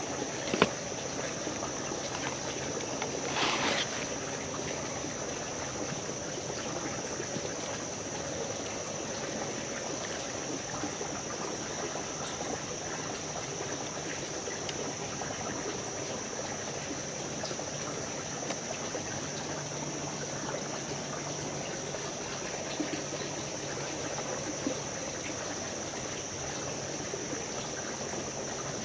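Creek water trickling and running steadily, with a steady high-pitched tone over it. A click just after the start and a brief rustle about three and a half seconds in.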